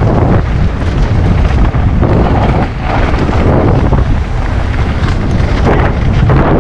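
Wind buffeting the microphone of a GoPro Hero 9 action camera on a moving mountain bike, with a few short knocks.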